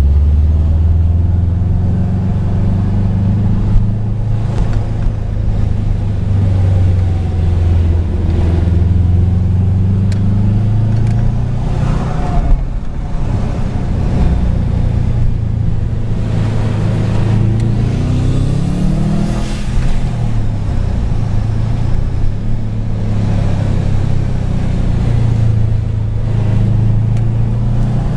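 Car engine and road noise heard from inside the cabin while driving: a steady low drone, with the engine note rising a couple of times as the car picks up speed.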